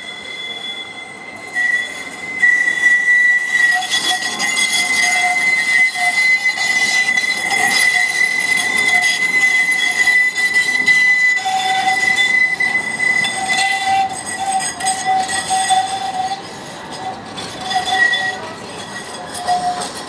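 Tram wheels squealing against the rails: a loud, sustained high-pitched screech that swells about two seconds in, eases off after about sixteen seconds and flares briefly once more near the end.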